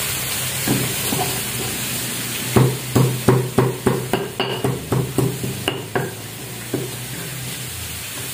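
Spice paste being ground with a stone pestle in a stone mortar (cobek and ulekan): a run of sharp knocks, about three a second, from about two and a half seconds in for some three seconds. Under it, chayote slices sizzle steadily as they fry in oil in a wok.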